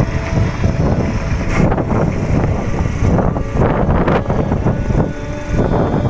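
Motorcycle on the move, its engine running steadily under heavy wind buffeting on the microphone.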